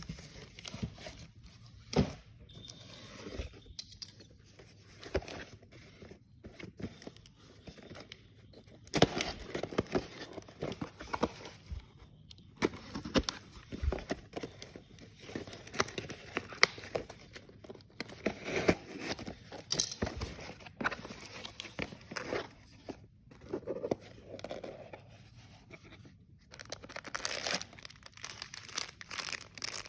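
Packaging being crinkled, crumpled and torn open by hand in irregular rustling bursts with sharp crackles.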